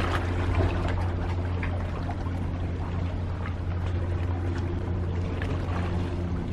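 Seawater sloshing and splashing against concrete tetrapods at the foot of a breakwater, with a steady low hum underneath.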